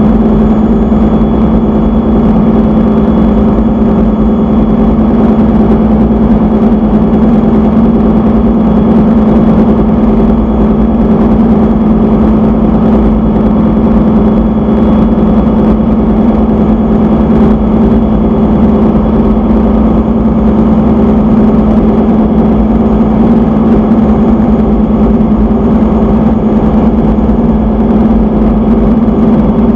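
Engine-room noise of diesel engines running: a loud, steady drone with a strong low hum and an even pulsing beat, unchanging throughout.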